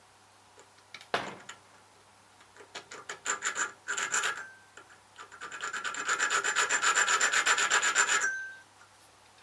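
A hand file rasping across a metal key blank. There is a knock about a second in, then a short run of strokes, then a longer run of quick, even back-and-forth strokes that stops shortly before the end. The filing deepens one of the key's cuts to match a pin.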